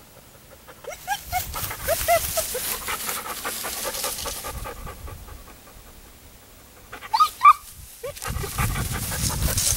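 German shorthaired pointer panting with short high whines, two louder whines about seven seconds in, over dry grass rustling that fades in the middle and picks up again near the end.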